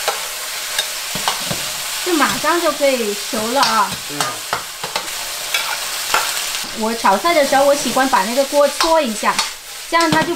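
A metal ladle stirs and scrapes food around a wok over high heat against a steady sizzle of frying minced pork. Frequent taps and wavering scraping tones come from the ladle on the pan, and sliced celery is tipped in about halfway.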